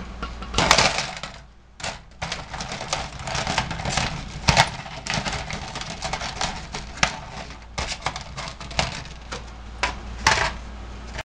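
Aluminum foil crinkling as hands fold, press and crimp it into a box shape: a rapid run of crackles with a few louder crunches.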